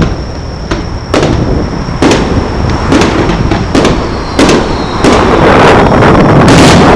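Aerial fireworks shells bursting, a string of sharp bangs about every half second to a second. About five seconds in they give way to a louder, dense, continuous crackling as several go off together.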